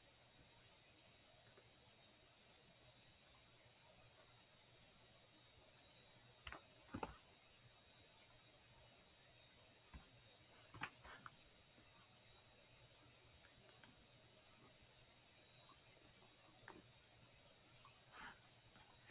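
Faint computer mouse clicks at an irregular pace, a few coming in quick pairs.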